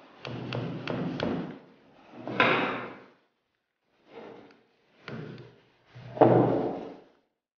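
Rubber mallet tapping a pin punch to drive the grip pin out of a WE G17 gas-blowback airsoft pistol's polymer frame: a quick run of sharp taps. Then separate knocks and thuds as the mallet is set down and the pistol is handled on the table, the loudest about six seconds in.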